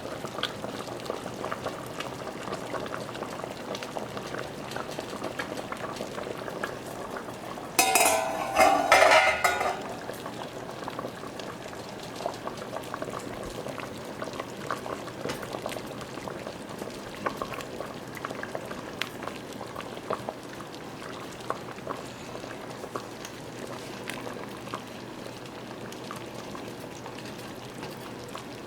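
Soup boiling in a pot, a steady bubbling with many small pops. About eight seconds in comes a loud metallic clatter against the pot that lasts about two seconds.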